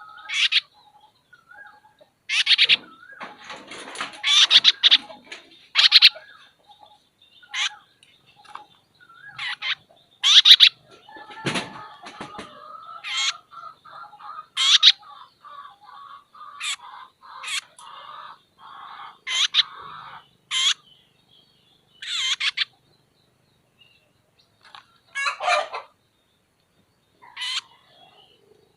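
A bird giving short, sharp, high-pitched calls over and over at irregular intervals, roughly one every second or two, with quieter, lower calls in between.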